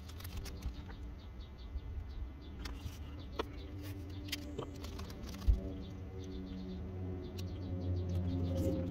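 A buzzing insect with a wavering drone, over small clicks and rustles of painter's tape being laid and pressed onto the vinyl shed roof, and one dull thump about five and a half seconds in.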